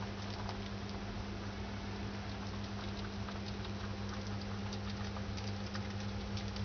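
White pet mouse nibbling and chewing wet rice, a patter of faint quick irregular clicks from its teeth over a steady low hum.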